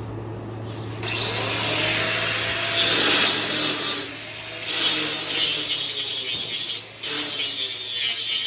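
Electric power tool running with a steady motor hum, loading up as it works against material from about a second in. It eases off briefly twice, around four and seven seconds, and cuts off right at the end.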